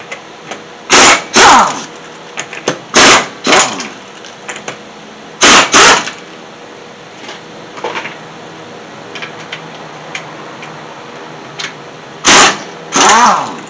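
Pneumatic impact wrench running in short bursts on a car's wheel lug nuts to loosen them, the bursts coming in pairs, four pairs with a long pause before the last. Light clicks of the socket and nuts between the bursts.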